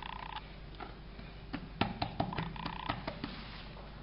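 Hands patting and pressing a ball of dough flat on a wooden board, with a cluster of soft taps and knocks about two seconds in.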